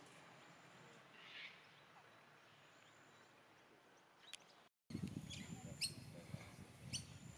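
Birds chirping over quiet outdoor ambience. After a brief dropout about five seconds in, the chirps get louder: several short, sharp calls over a low rumble.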